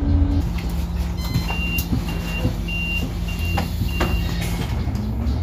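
Scania articulated city bus: five short high beeps about half a second apart, a warning signal typical of the doors about to close, over the steady low hum of the idling engine.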